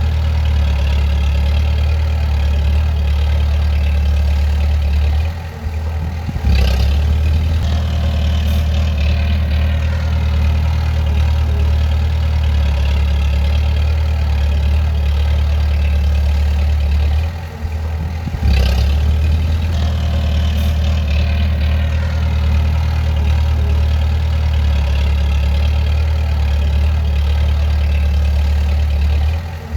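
Bulldozer's diesel engine running steadily with a low hum, dipping briefly twice, each dip followed by a short knock.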